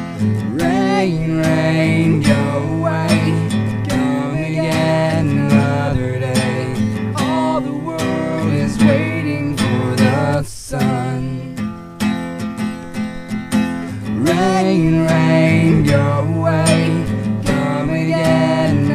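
A song with strummed acoustic guitar and a voice singing the melody. The music breaks off for a moment about ten seconds in.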